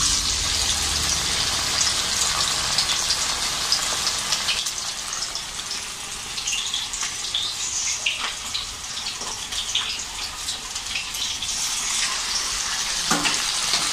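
Chicken pieces deep-frying in hot oil in a steel kadai: a steady sizzle with fine crackling as the oil bubbles around the meat.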